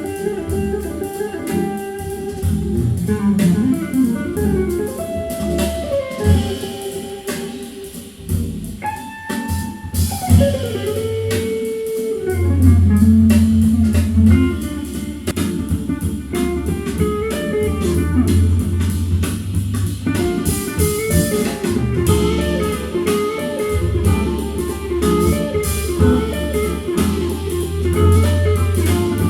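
Guitar-led music with bass guitar and drums, with sustained, bending guitar notes over a steady bass line.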